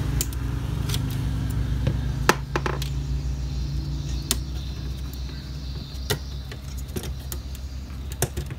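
Scattered sharp clicks and taps of a plastic laptop bottom case and its speaker being handled and pried with a screwdriver, over a steady low background hum.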